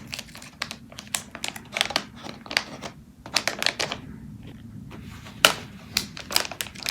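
Packaging of an AirPods case being worked open by hand with some struggle: a run of irregular plastic clicks, taps and light crinkles.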